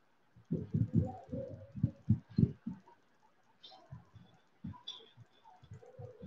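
Footsteps and knocks in a small room: a quick run of dull thumps for about two seconds, then fainter, scattered knocks and clicks.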